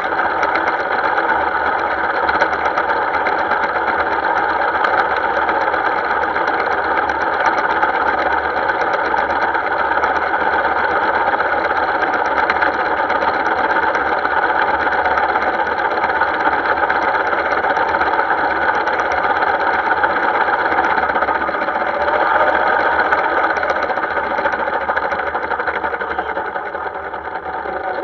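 Miniature ride-on model of a Class 08 diesel shunter running along the track: a steady, rapid mechanical clatter with a constant whine underneath. It eases off slightly near the end.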